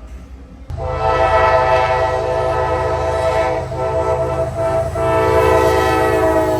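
Locomotive air horn sounding a chord of several notes at once: a long blast starting about a second in, a short one, then another long one, over a low rumble from the train.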